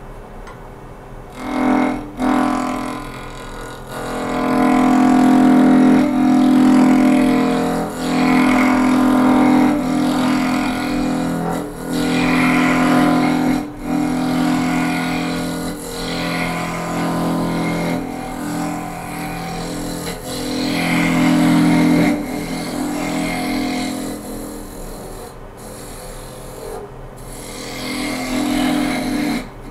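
Wood lathe spinning a spindle blank while a hand-held turning tool cuts into it: a steady droning hum with a hiss of peeling shavings. It comes as a series of long cuts with short breaks between them, beginning about a second and a half in.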